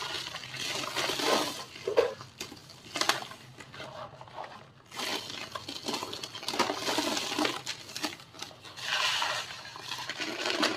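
Dry, crisp white cement shapes crumbling and crunching, irregular crackles and sharp clicks, with a short lull about four seconds in.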